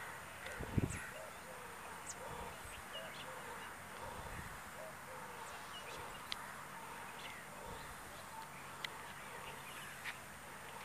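Many small birds chirping and calling at once, a steady background chorus of short notes. A low thump about a second in and a few sharp clicks later on.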